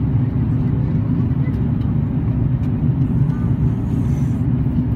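Steady low rumble inside the cabin of an Airbus A330-322 on approach, the engines and the airflow over the wing with its flaps extended, heard from a window seat over the wing.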